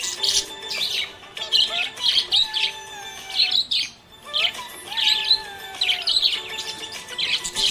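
Budgerigars chirping in quick high clusters, mixed with lower gliding whistles, with a short lull about four seconds in.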